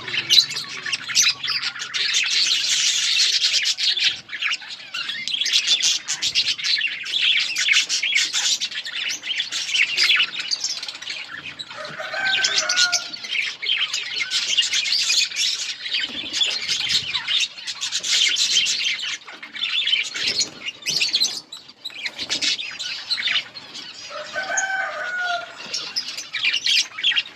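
A colony of budgerigars chirping and chattering together in a dense, continuous twitter, with a short lower call standing out about 12 seconds in and again near the end.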